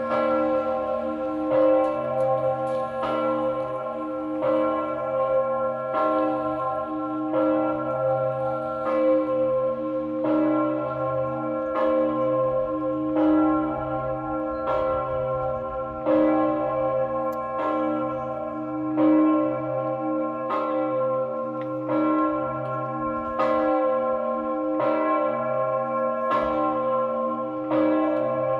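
The Augustin bell, one of the largest church bells in the Czech Republic, swinging and ringing in its tower, with a deep stroke about every one and a half seconds. Each stroke's hum carries on into the next.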